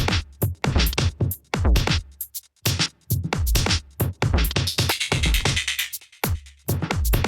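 UK bass electronic dance music from a DJ set: sharp drum-machine hits over deep sub-bass, with a noisy sweep building up in the middle.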